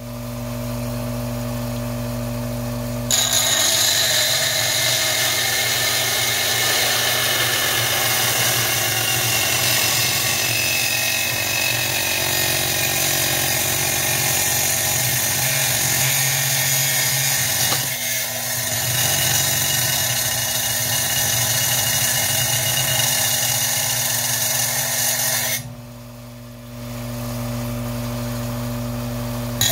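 Stained glass ring saw running with a steady motor hum. About three seconds in, its blade starts grinding through glass, louder and noisier. The grinding drops out briefly near the end, then resumes.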